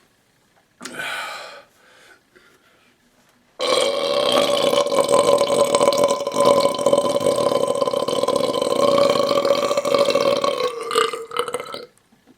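A man's belch drawn out for about eight seconds at a steady pitch, dipping slightly near the end. A short sound comes about a second in, before it.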